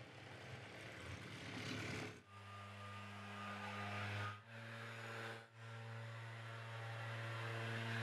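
Faint steady low mechanical hum over a light background hiss, breaking off briefly about two, four and a half and five and a half seconds in.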